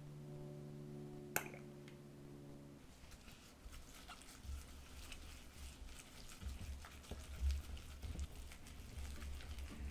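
A gloved hand squishing and mixing a thick soybean-paste seasoning in a ceramic bowl: wet, irregular squelching and crinkling with soft knocks. Before the mixing starts, a steady low tone holds for about three seconds with one sharp click, then stops.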